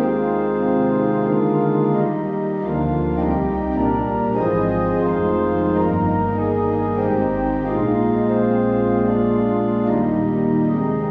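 Organ playing slow, held chords, with low bass notes coming in about three seconds in.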